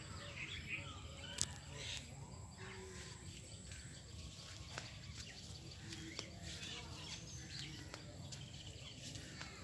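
Rural outdoor ambience: scattered faint bird chirps over a low steady rumble on the microphone, with a few sharp ticks.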